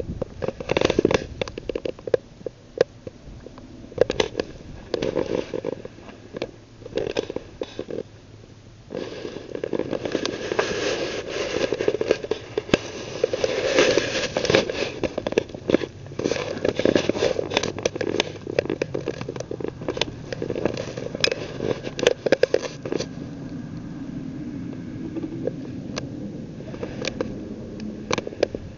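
Handling noise on a small handheld camera's microphone: irregular crackling and rustling with many sharp clicks, busiest in the middle.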